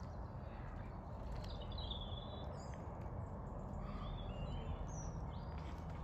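A few short bird calls, high-pitched, about a second and a half in and again around four to five seconds, over a steady low outdoor background noise.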